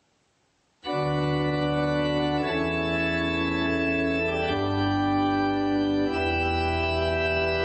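Two-manual electronic organ playing slow sustained chords over a pedal bass line, coming in suddenly almost a second in after near silence, the chord changing about every two seconds.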